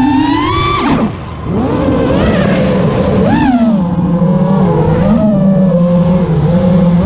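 FPV freestyle quadcopter's brushless motors whining, the pitch rising and falling with the throttle. About a second in the throttle is cut and the whine drops and quietens briefly, then it climbs back with short punches of throttle.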